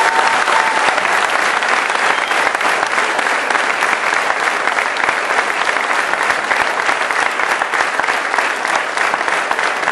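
Audience applauding steadily: many hands clapping at once, a dense, even sound that holds at one level throughout.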